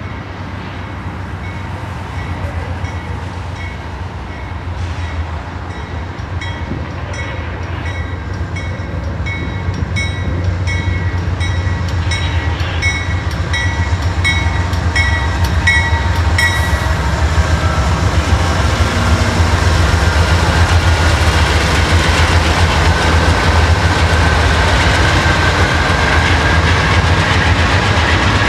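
Norfolk Southern diesel-electric freight locomotives approaching and passing with a steady low engine drone, growing louder. The locomotive bell rings about twice a second and stops about two-thirds of the way through. After that the train's cars roll by, with steel wheels clattering on the rail and a thin high squeal.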